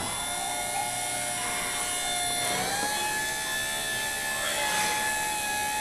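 12-volt windshield wiper motor running, a steady electric whine that rises slightly in pitch about two and a half seconds in.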